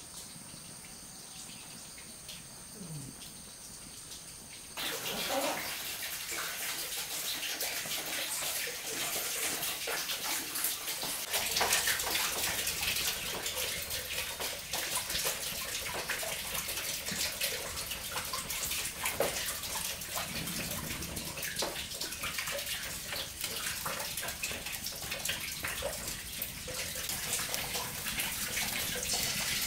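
Running water: a steady rushing noise that starts about five seconds in and grows fuller about a third of the way through.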